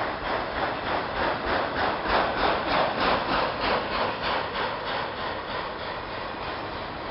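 Loaded autorack freight cars rolling past on the rails, with a rhythmic rasping about four times a second that swells for a couple of seconds and then fades.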